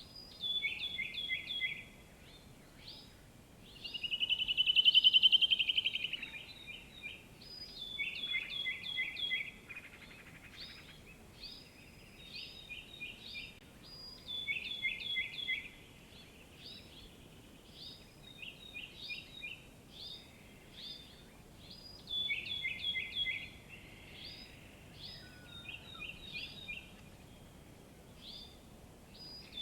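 Songbirds singing: repeated short phrases of four or five quick falling notes, with one louder, longer trill about four seconds in, over a faint steady background hiss.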